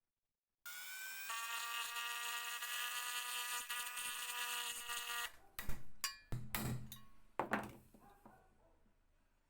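A small motor-driven tool running at a steady pitch and stopping abruptly, then several sharp metallic knocks.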